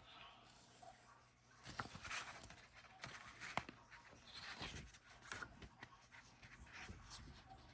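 Faint handling sounds of an unboxing: soft rustling of packaging with a few light clicks and taps, the sharpest about three and a half seconds in.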